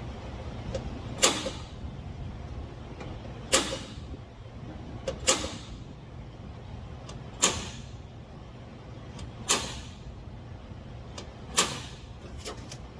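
Six sharp knocks about two seconds apart, each with a short ring after it, over the steady low hum of a fan.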